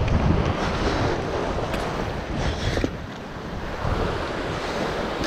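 Ocean swell surging and breaking over rocks, with wind buffeting the microphone. The rush of water swells near the start and again about four seconds in.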